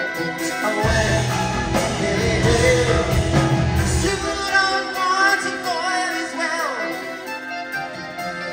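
Live progressive rock band playing, with electric guitars, keyboards, bass and drums and a voice singing. Heavy bass and drums come in about a second in and drop away about four seconds in, leaving a lighter passage.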